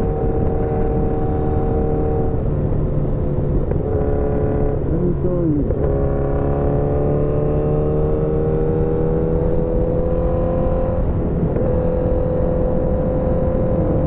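Motorcycle engine running under way, heard over a steady rush of wind and road noise. Its pitch drops about two and a half seconds in, dips again around five to six seconds, then climbs slowly and levels off as the bike speeds up.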